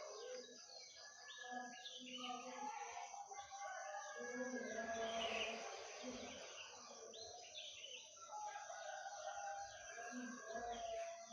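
Many small birds chirping and calling over one another, with a rooster crowing about halfway through.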